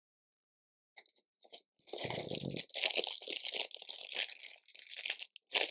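Small plastic LEGO pieces clattering and rattling as hands sift through loose bricks, a dense run of about three seconds, ending with a sharp click.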